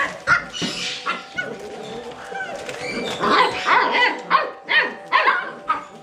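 A litter of seven-week-old Basset Hound puppies barking and yipping over and over in short high calls, several a second, busiest in the second half.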